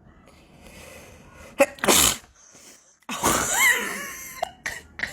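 A person sneezing twice: a short, sharp sneeze about two seconds in, then a longer, voiced sneeze about a second later.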